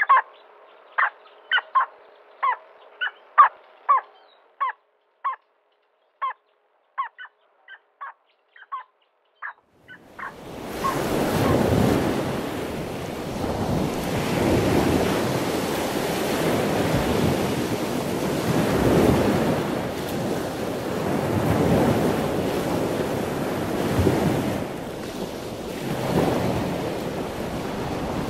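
A bird gives a rapid series of short, sharp calls, about one or two a second, for roughly ten seconds. Then a loud, steady rushing noise takes over, swelling and easing every three or four seconds.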